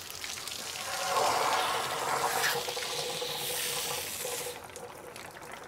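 Water rushing and splashing through the cooling-water passage of a 1992 Johnson 48 hp two-stroke outboard, flushed to check that the passage is clear. The flow grows stronger about a second in and stops about four and a half seconds in.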